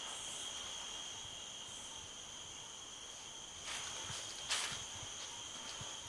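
Night insects trilling in one high, unbroken tone, with two soft scuffs a little past the middle.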